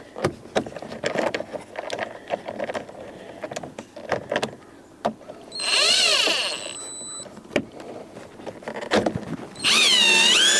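Power drill driving a screw into a plastic car door panel: two short runs of the motor's whine, rising and falling in pitch as the screw bites, about five seconds in and again near the end, with light clicks and handling noise between them.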